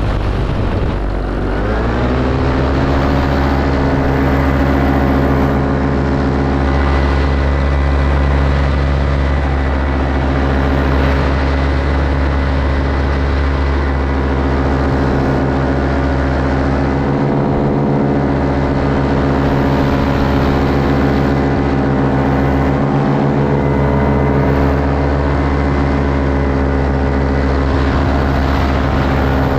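Paramotor engine and propeller running under power. The pitch rises as the throttle opens about two seconds in, then holds steady, and climbs again near the end.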